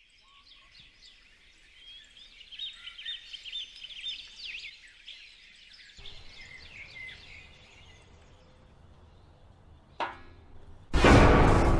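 Birds chirping and singing in the trees, with many quick rising and falling calls; about six seconds in this cuts off abruptly to a fainter steady outdoor background. Near the end comes a short click, then a loud rushing burst of noise lasting about a second.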